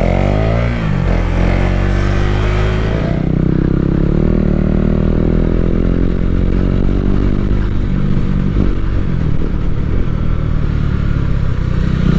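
KTM Duke 390's single-cylinder engine running under a rider: the revs drop over the first three seconds, then hold low and uneven with small rises and falls.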